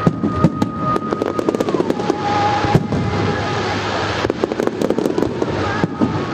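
Fireworks display bursting overhead, a dense run of sharp cracks and bangs, with a held whistle-like tone that drops in pitch about two seconds in.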